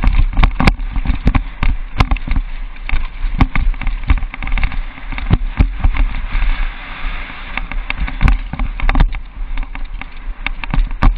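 Downhill mountain bike ridden fast over a rough dirt trail: irregular rattling and knocking from the bike and camera mount over bumps, over a steady low rumble of wind on the microphone.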